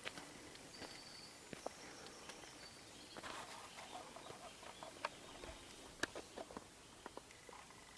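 Faint birdsong: short, thin high notes and some chattering calls, with scattered small clicks and taps.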